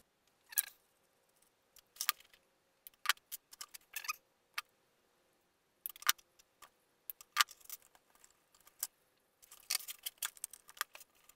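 Irregular sharp clicks and light taps of small parts and a hand tool being handled on a wooden workbench, with short clusters of quick clicks, the loudest a little after the start and twice around the middle.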